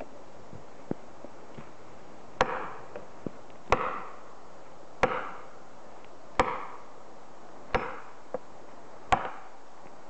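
Felling wedge being driven into the back cut of a standing tree: six hard blows about every second and a half, starting a little over two seconds in, each a sharp crack with a short ring.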